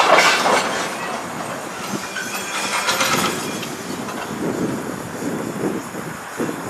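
Freight train of boxcars rolling slowly and coming to a stop, getting quieter, with a brief squeal of wheels or brakes a couple of seconds in.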